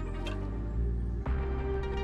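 Background music: a slow, sustained instrumental bed with a steady deep bass, moving to a new chord a little after a second in.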